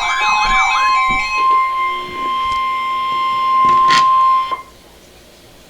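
Electronic keyboard music with wavering notes over a steady high tone, which carries on with held lower notes. A sharp click comes about four seconds in, and the sound cuts off suddenly, leaving a faint hiss.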